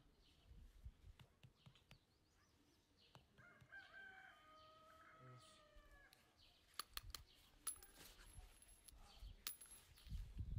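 Near silence with a faint, drawn-out bird call in the middle, then a few faint metallic clicks and jingles in the last few seconds.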